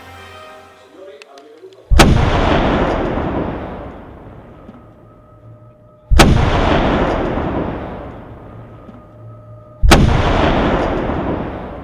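Three loud explosive booms, about four seconds apart, each hitting suddenly and rumbling away over two to three seconds.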